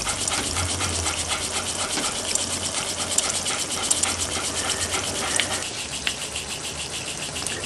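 Mamod SE2 toy steam engine running slowly with the throttle turned back, giving a quick, even chuff of exhaust steam over a steady hiss.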